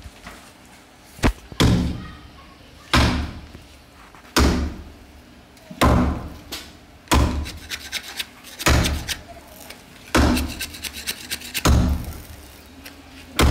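Repeated heavy thuds, about one every second and a half, each with a short ringing tail.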